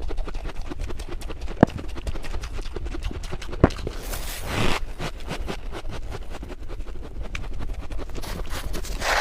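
Freezer frost being chewed and crunched in the mouth: a dense run of small crackles, with two sharper clicks and a short rustling hiss about four seconds in as a spoonful of frost crumbles and falls.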